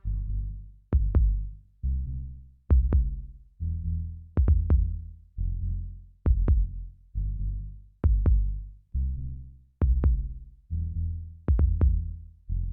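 Electronic music on a drum machine or synthesizer: a low bass note that dies away, repeating about once a second, with short sharp clicking hits in quick pairs or triplets between them.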